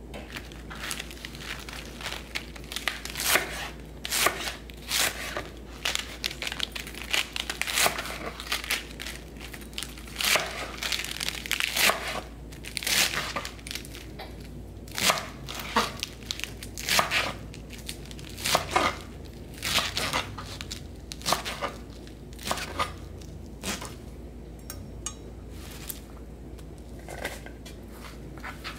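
Chef's knife cutting through crisp romaine lettuce on a plastic cutting board: a long run of separate cuts at an uneven pace, about one or two a second, growing fainter near the end.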